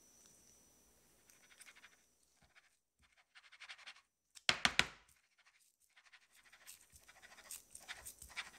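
Plastic wrap crinkling and rustling around a stainless steel cake ring as it is gripped and shaken on a wooden board to level the chocolate cheesecake filling inside. A quick cluster of sharp knocks comes about halfway through, the loudest thing heard.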